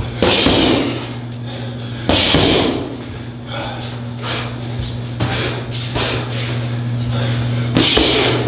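Punches landing on striking pads in a loose run of hits: three hard strikes stand out, near the start, about two seconds in and near the end, with several lighter hits between. A steady low hum runs underneath.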